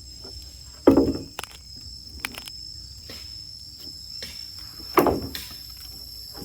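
Steady high-pitched insect chorus, with two loud, short, sudden sounds about a second in and again about five seconds in.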